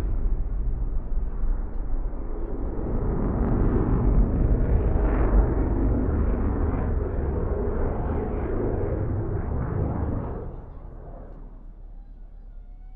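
Military jet flying the display, heard from about 2 km away: a deep rumbling jet noise with a rough, crackling edge, which falls away quickly about ten seconds in.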